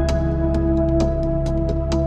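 Calm ambient background music: sustained chords over a steady bass, with light struck notes ringing out every half second or so.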